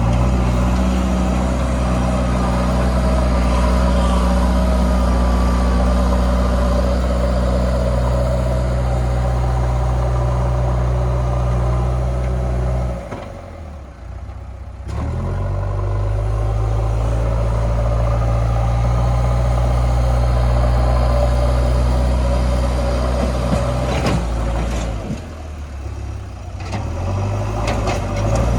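JCB 3DX backhoe loader's diesel engine running hard and steady, easing off twice to a lower, quieter speed for a second or two before picking up again. A few sharp knocks come near the end.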